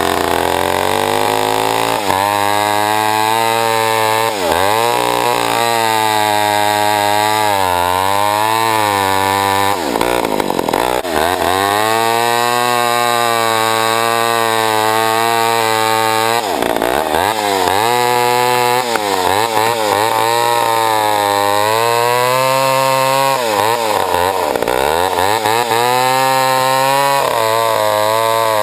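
1966 Pioneer 65cc two-stroke chainsaw running hard with a 28-inch bar and an oversized drive sprocket, cutting wood. Its pitch wavers under load and drops sharply about five times, then climbs back each time.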